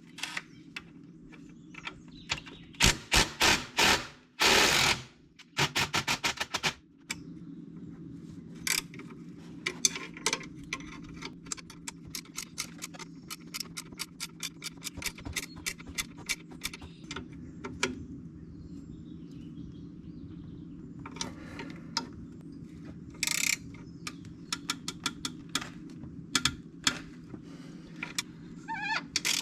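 Ratchet wrench clicking in quick runs, with scattered metal tool clinks, as bolts are loosened and tightened to tension the skid steer's drive belts. A steady low hum runs underneath.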